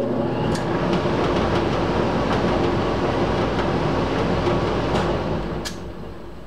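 Belt-driven squirrel cage blower running on its newly fitted, re-tensioned belt: a steady rush of air with a low hum. Near the end a click, and the sound starts to die away.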